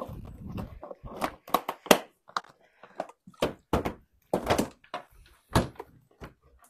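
A cob pony nosing and mouthing a phone held up to his face: a series of irregular knocks and bumps from his muzzle against the phone, with a low rubbing rumble at the start.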